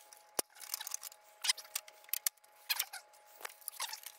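A string of short plastic clicks and scrapes, with a sharper knock about half a second in, as the round plastic stand base of a CRT monitor is handled and worked loose.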